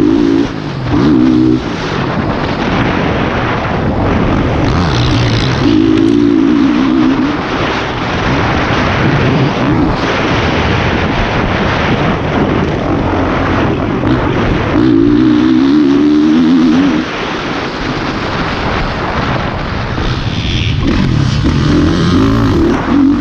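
Honda CRF450R motocross bike's single-cylinder four-stroke engine revving hard and dropping back again and again as the throttle is opened and closed, under heavy wind rush over the camera.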